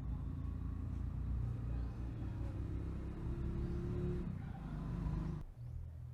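An engine running steadily at low speed, with a slight rise in pitch in the middle; about five and a half seconds in the sound changes abruptly and drops to a lower, quieter hum.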